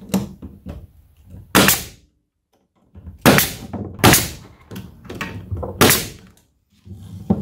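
Pneumatic stapler firing staples into the glued joints of a wooden beehive frame: four sharp shots, one to two seconds apart.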